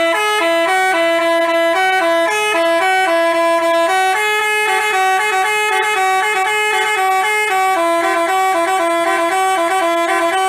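Basuri telolet bus horn playing a melody: a quick run of held notes stepping up and down, with two pitches sounding together.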